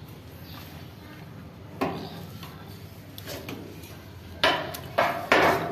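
Short clattering, rustling knocks as straw brooms and a plastic dustpan are shifted about: one about two seconds in, then three close together near the end.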